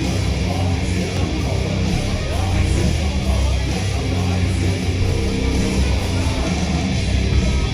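Loud rock music with electric guitar and a heavy bass, played over a venue's sound system.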